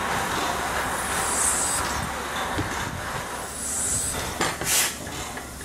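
Brighton Terrier 0-6-0T steam tank engine moving slowly along the platform, with a steady rumble and a short high-pitched squeal about every two seconds. A brief burst of hiss comes near the end.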